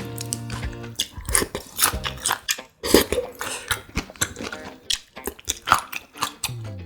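Close-miked eating of grilled pork intestine (makchang): many quick, irregular bites and chews, wet and sticky.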